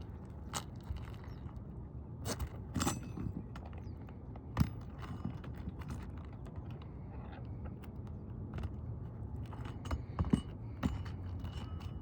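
Handful of roofing nails clinking and rattling as they are handled, with scattered sharp clicks and knocks, the loudest about four and a half seconds in and another cluster near the end.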